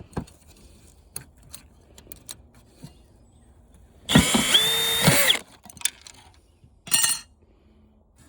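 Cordless drill (screw gun) backing screws out of a floor fan's parts: small clicks of handling, then the drill run in one burst about four seconds in, its motor pitch steady then rising, and a short second burst about three seconds later.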